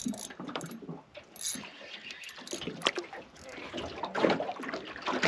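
Spinning reel cranked hard against a hooked fish, its gears and clicks ticking irregularly over lapping water, with a sharp knock about three seconds in.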